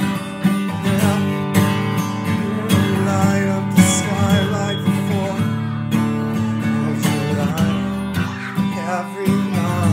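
Acoustic guitar strummed and picked, playing chords with a strong strum about once a second.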